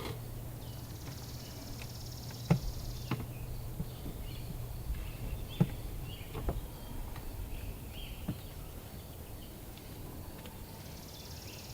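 Outdoor ambience with an insect's high buzz that comes in for a couple of seconds near the start and again near the end. A few sharp knocks and clicks, the two loudest about two and a half and five and a half seconds in, and faint short chirps.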